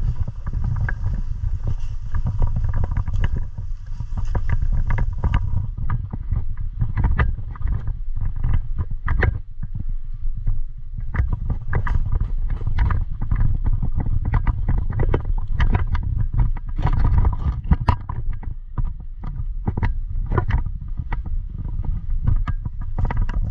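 Irregular footsteps, rustling and clattering of gear from someone moving on foot, over a steady low rumble of handling and wind on a body-worn action camera's microphone.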